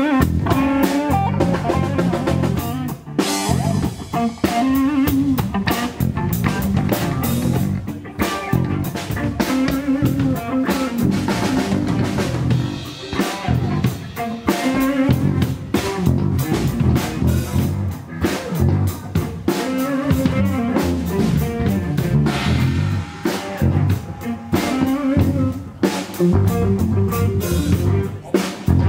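Live rock band playing an instrumental passage: electric guitar over a drum kit and bass guitar, with a steady beat and no vocals.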